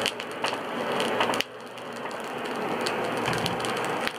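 Hardwood lump-charcoal fire in a stone forge hissing and crackling under the bellows' air blast, sparks flying. The rush drops off suddenly about a second and a half in, then builds back up steadily.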